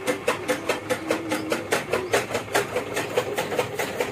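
Cow being milked by hand: milk squirting into a pail in quick, even spurts, several a second, over a steady ringing note.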